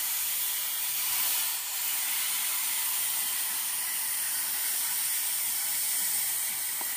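Oxy-fuel cutting torch hissing steadily as its flame cuts through a steel excavator track link.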